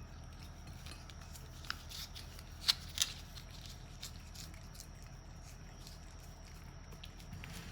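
A few sharp small clicks or taps, three in quick succession with the last two loudest, over a steady low hum.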